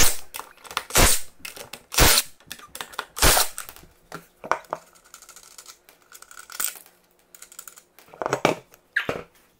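A string of separate sharp metal clinks and clacks, about one a second, from lug nuts and a cordless impact driver being handled at an ATV wheel hub.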